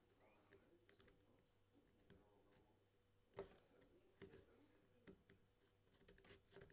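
Near silence with faint, scattered small clicks and ticks, the sharpest about three and a half seconds in.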